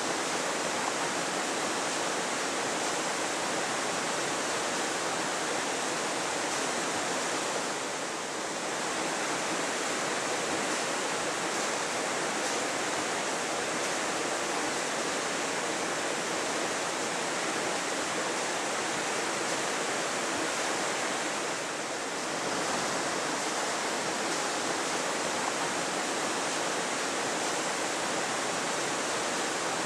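Water rushing steadily through the upper gates of a hand-operated canal lock into the lock chamber, easing briefly twice.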